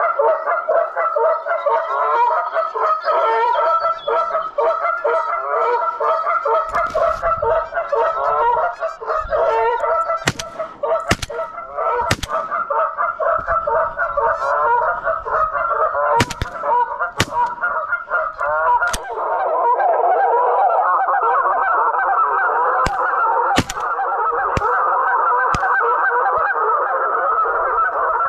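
A flock of geese honking, many calls overlapping without a break, growing denser about two-thirds of the way through. About ten sharp clicks are scattered through the middle and later part.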